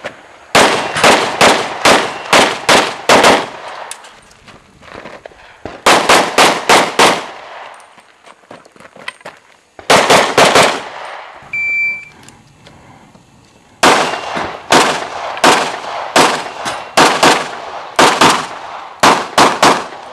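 Rapid strings of handgun shots, several quick shots at a time with short pauses between strings, as IPSC shooters engage the targets. A short electronic shot-timer beep sounds about halfway through.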